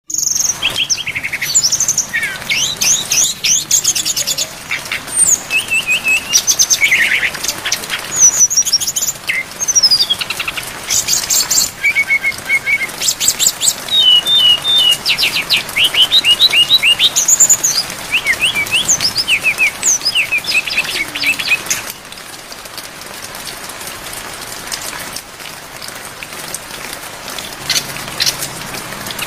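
Brown-chested jungle flycatcher (sikatan rimba dada coklat) singing a fast, varied song of whistles, trills and chirps packed with other birds' phrases, over a steady rain hiss. About 22 seconds in, the song thins to sparser, quieter chirps.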